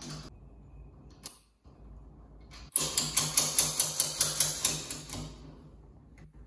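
A rapid, even run of sharp mechanical clicks, about five a second, starting nearly three seconds in and lasting about two and a half seconds.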